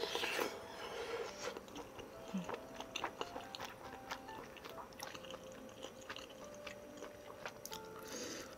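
Close-up eating sounds of a person chewing a mouthful of spicy tteokbokki: many small mouth clicks and smacks. The eating is louder right at the start and again near the end.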